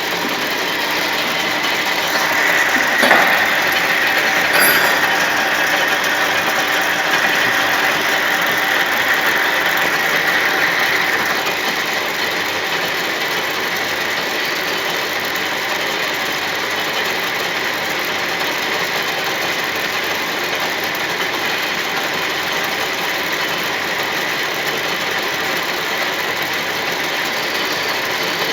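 Metal-turning lathe running steadily, as in taper turning, with a higher whine over the first dozen seconds that then fades. There is a brief knock about three seconds in.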